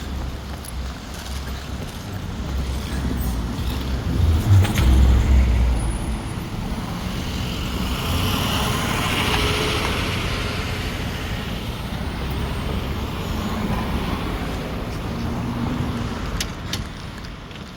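Street traffic on a busy avenue: cars and trucks passing, with a heavy low rumble about five seconds in and a passing vehicle's hiss that swells and fades around the middle.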